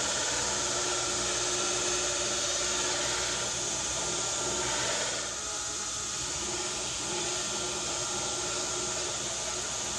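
Belt grinder running with a Damascus steel Bowie blade pressed against the belt: a steady grinding hiss over the machine's hum, dropping a little in level about five seconds in.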